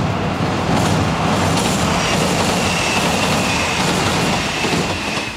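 Kintetsu express train passing on the railway bridge, a loud steady rumble of wheels and running gear. A thin high tone joins in about two seconds in, and the noise begins to fade near the end as the train goes by.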